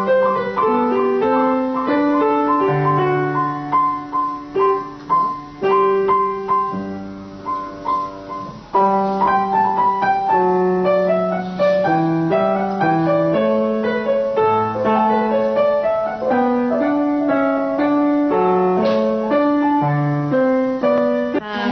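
Piano playing: a steady run of single notes and chords, melodic rather than random, with a short lull about eight seconds in.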